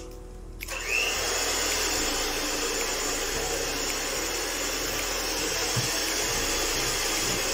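Electric hand mixer switched on about a second in, with a brief rising whine as it spins up, then running steadily, its beaters whirring in a stainless steel mixing bowl.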